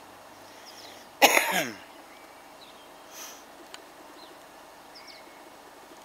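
A man coughs once, a short harsh burst about a second in that trails off into a falling voiced tone.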